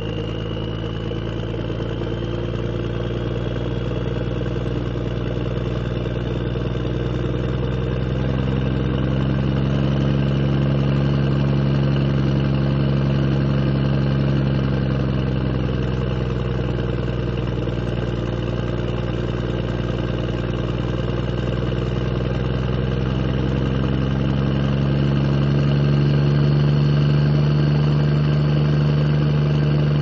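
A vehicle engine running steadily at low speed, its hum swelling slightly in loudness twice.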